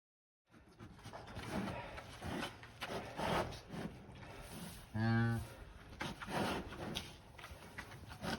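A cow lows once, briefly, about five seconds in, over ongoing rustling and knocking noises.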